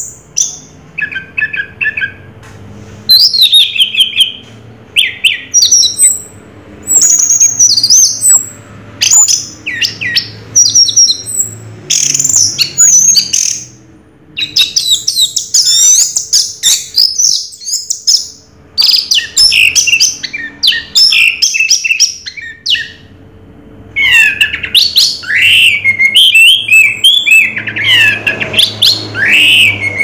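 Orange-headed thrush (anis merah) singing a long, varied song of quick whistled and warbled notes, delivered in phrases of one to three seconds with short pauses between them.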